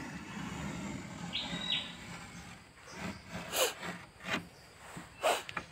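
Steel tip of a bent file scratching along a meranti plank as it scribes a cut line, with short sharp scrapes about three and a half and five seconds in.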